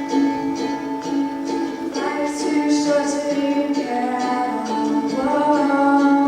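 Ukulele strummed in a steady rhythm, with voices singing long held notes through the middle.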